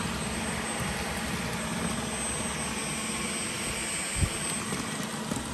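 Dyson V15 Detect cordless stick vacuum running steadily on a hard floor with its laser floor head: an even rush of suction air with a thin, steady high whine. One short knock about four seconds in.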